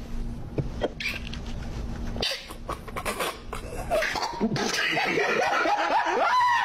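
A man's stifled laughter, with snickers and cough-like snorts, getting louder about halfway through.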